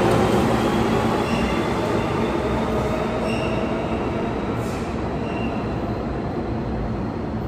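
New York City subway (G) train running through an underground station: a steady rumble of wheels on rail with faint, intermittent high-pitched wheel squeal, slowly easing off as the train moves away.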